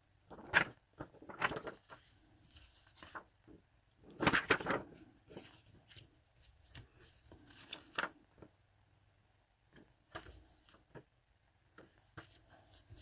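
Sheets of paper and card-stock picture cards rustling and sliding as they are handled and laid down, in scattered short rustles, the loudest about four seconds in.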